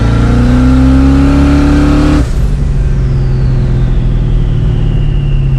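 Car engine accelerating hard, its pitch climbing for about two seconds, then dropping abruptly, as at a gear shift or lift off the throttle. It carries on at a steadier, lower note, under a high whine that slowly falls in pitch.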